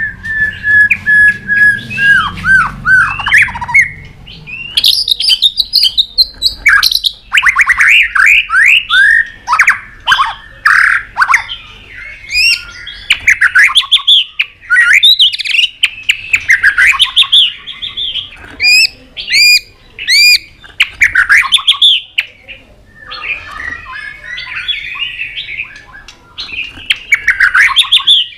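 Male white-rumped shama singing a loud, varied song: it opens with one held whistle, then runs into quick rising and falling whistled phrases mixed with sharp clicking notes and harsh calls.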